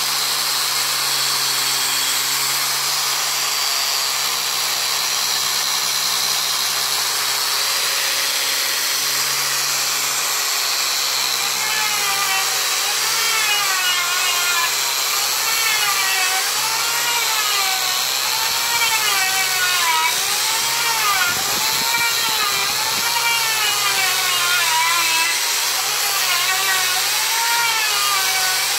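Electric angle grinder with a sanding disc on a backing pad, running continuously while sanding a solid jackfruit-wood door. From about halfway in, its whine rises and falls every second or so.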